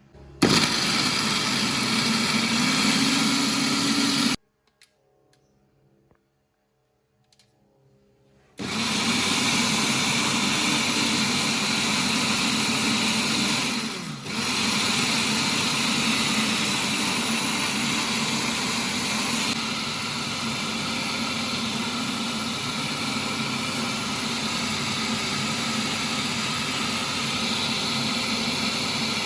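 Electric blender running: a first run of about four seconds, then after a short pause a long steady run of about twenty seconds, with a brief dip partway through.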